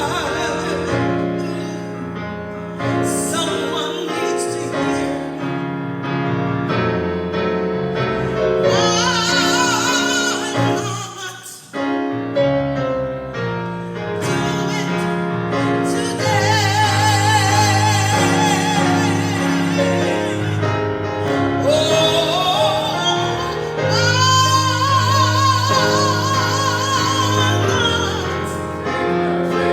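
A woman sings a gospel song with wide vibrato on long held notes, over sustained keyboard chords. There is a brief break between phrases about twelve seconds in.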